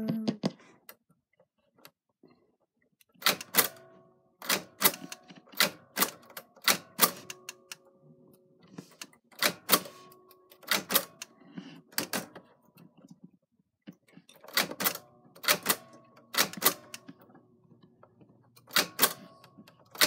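Typewriter being typed on: about twenty sharp key strikes in irregular runs with short pauses between them. Each strike is followed by a brief ringing tone.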